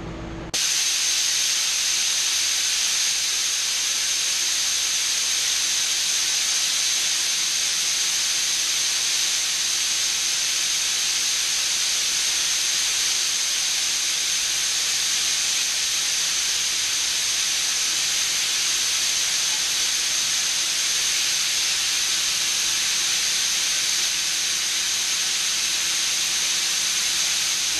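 Compressed air hissing steadily out of an air compressor system as tank pressure is bled off, starting suddenly about half a second in.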